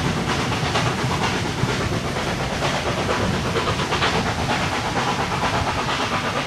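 Steam train running on the line, a steady mix of steam hiss and exhaust with wheels clattering on the rails.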